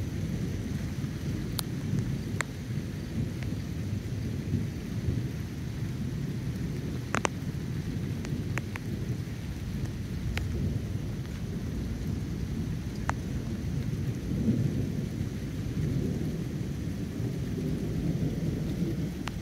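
Thunderstorm: rain falling steadily under a low, rolling rumble of thunder, with a few sharp ticks here and there.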